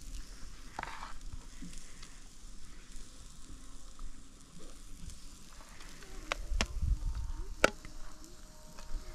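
Kebabs sizzling on a clay barbecue: a steady frying hiss, with three sharp clicks or knocks in the second half.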